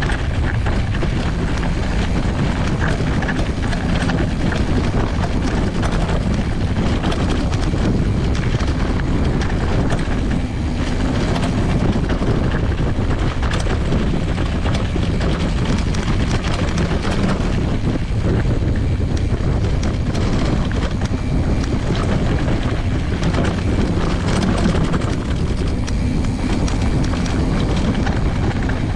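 Mountain bike's knobby tyre rolling over dirt and loose gravel, with the bike rattling over the bumps and wind on the microphone: a steady heavy rumble full of small clicks and knocks.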